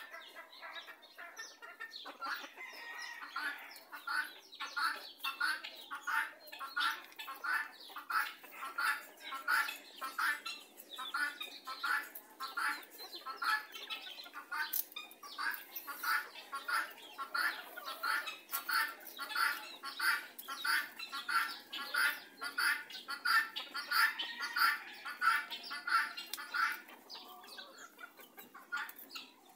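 Rooster clucking in a steady, even rhythm, about two to three short clucks a second, trailing off near the end.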